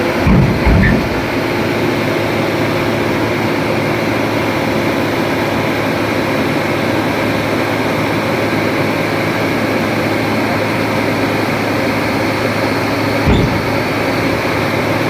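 Excavator's diesel engine running steadily, with two short low thumps about half a second in and another near the end.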